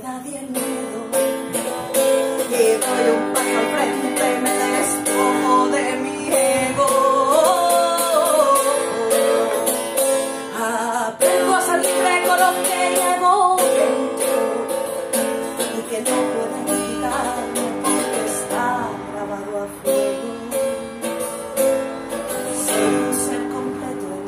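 A person singing while strumming a small acoustic guitar: steady strummed chords under a sung melody, with no break.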